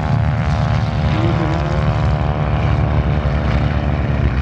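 Stearman biplane's seven-cylinder Continental radial engine and propeller running steadily at high power, a dense even drone.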